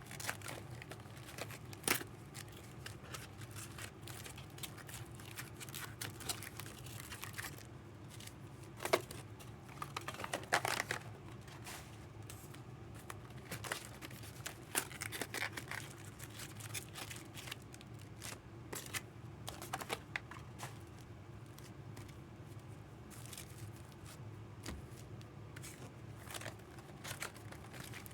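Packaging being handled, crinkling and tearing in short, scattered bursts, over a steady low hum.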